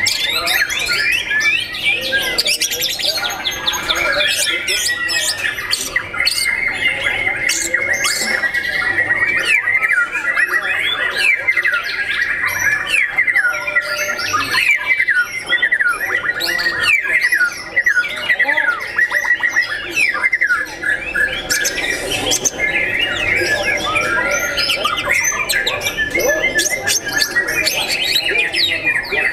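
White-rumped shama (murai batu) singing continuously: a long, varied run of rapid whistles, sweeping notes and chattering calls, with other caged songbirds calling at the same time.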